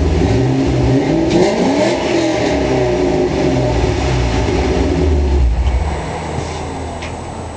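Ford Mustang V8 through a Pypes catted X-pipe and Flowmaster American Thunder axle-back exhaust, blipped once about a second in, falling back and running steadily, then quieter near the end. The note is raspy, which the owner puts partly down to a leak at the catalytic converters.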